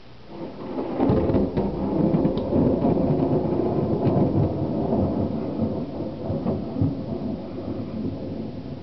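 Thunder from a monsoon thunderstorm. It builds within the first second into a loud, crackling rumble, rolls on for several seconds, then slowly fades.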